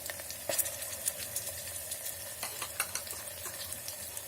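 Onions, capsicum, green peas and tomato sizzling in hot oil in a pan, with scattered sharp clicks and scrapes of a spatula stirring them.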